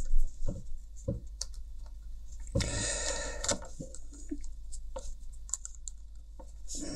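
Small plastic clicks and scratches as a plastic pry tool works at the hinge of a Bluetooth headphone earcup, with a longer scraping rustle about two and a half seconds in.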